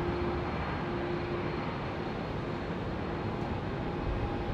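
Distant Boeing 787-8 airliner landing: a steady jet rumble with a faint, even hum through it.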